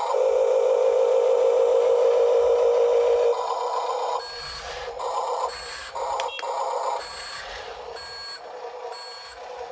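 Huina 1582 RC dump truck's electronic sound kit playing a simulated truck engine through its small speaker. The sound is steady and loudest for the first three seconds, then comes in shorter bursts. From about four seconds in, short high beeps sound roughly once a second, like a reversing alarm.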